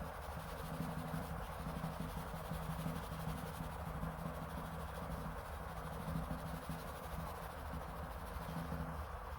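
Steady background hiss with a faint low hum that comes and goes, and no distinct events.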